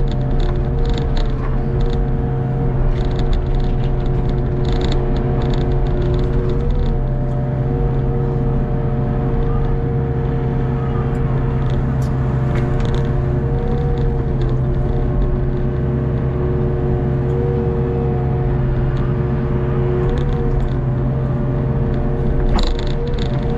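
Hitachi ZX48U mini excavator's engine running steadily under load with the even whine of its hydraulics, which dips briefly a few times as the arm digs and dumps mud, heard from the operator's seat. Clusters of light rattling clicks in the first several seconds and again near the end.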